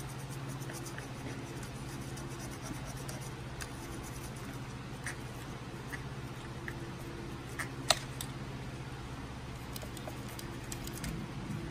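Light scratching and small ticks of a metal needle tool picking at a painted model, lifting off masking fluid so the paint chips away, with one sharper click about eight seconds in. A steady low hum runs underneath.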